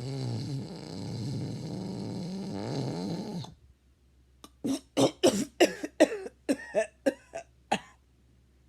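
A sleeping person snoring: one long, wavering snore ends about three and a half seconds in. After a short pause come about ten short coughs in quick succession.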